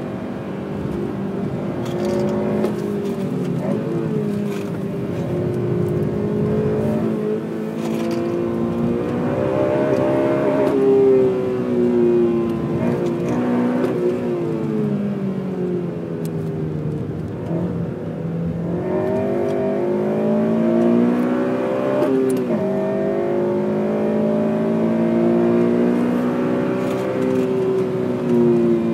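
Honda Civic Type R FN2's 2.0-litre four-cylinder i-VTEC engine being driven hard on track. Its pitch repeatedly climbs under acceleration and drops at gear changes and when the driver lifts off. There is a long fall about halfway through before it climbs again.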